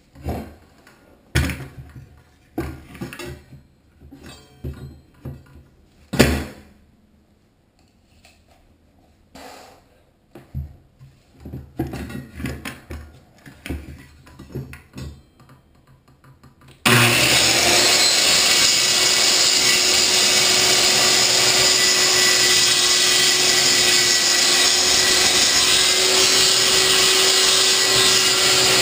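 Scattered knocks and clatter as a corded circular saw is handled and set in place. About two-thirds of the way in, the saw starts abruptly and runs at a steady pitch with a constant whine, cutting along the edge of the hardwood floor.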